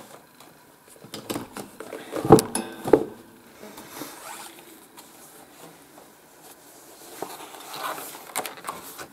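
Paper colouring books being shifted and handled on a table: rustling and light clicks, two sharper knocks about two and three seconds in, then the rustle of a page being turned near the end.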